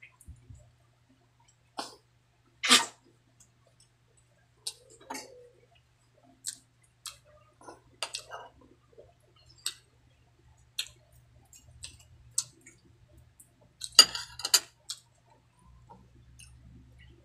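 Close-miked eating by hand: chewing with wet mouth clicks and lip smacks, and fingers working rice and fish on a plate. Short clicks are scattered throughout, with a louder one about three seconds in and a quick cluster about two thirds of the way through.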